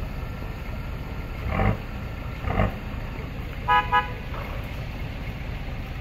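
A vehicle horn gives two short toots close together about four seconds in, over the steady low rumble of an engine running.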